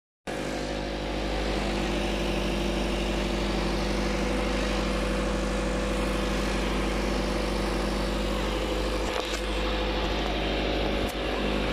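Flatbed tow truck's engine idling steadily, with a low rumble. Two brief knocks near the end.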